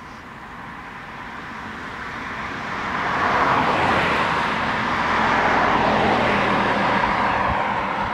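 A car driving past on the road, its tyre and engine noise swelling to a peak about three and a half seconds in, holding for a few seconds, then starting to fade near the end.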